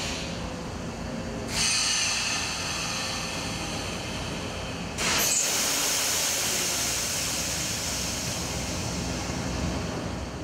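Mayekawa PSA nitrogen gas generator running with a steady low rumble, and the hiss of gas venting through its exhaust silencer. The hiss gets louder suddenly about a second and a half in and again about five seconds in.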